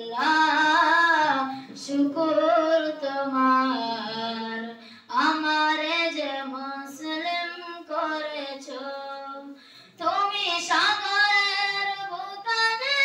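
A boy singing a Bangla gazal solo, without instruments, in long held, wavering phrases. He breaks briefly for breath about five and ten seconds in.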